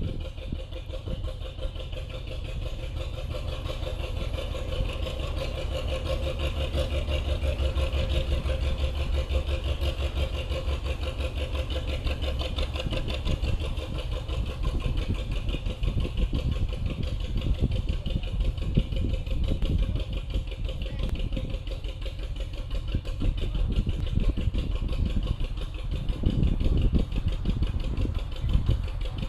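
Diesel engine of a narrow boat running steadily under way, a continuous low pulsing chug.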